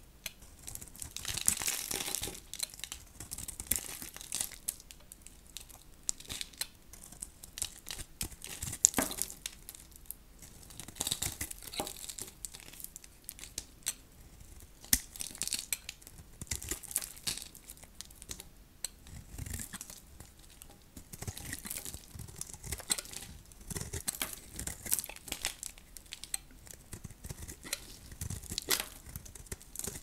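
Dry, hard soap being cut with a blade: repeated crisp, crunchy cutting strokes full of crackling and sharp little cracks, coming unevenly with short pauses.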